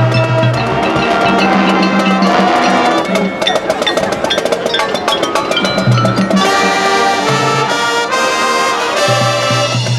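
Marching band playing, with brass holding chords over drums. In the middle the brass drops back under a stretch of fast drumming, then comes in again with full chords.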